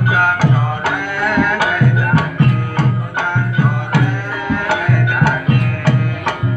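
Small Javanese gamelan ensemble playing, with kendang hand-drum strokes keeping a steady rhythm under ringing pitched melody tones.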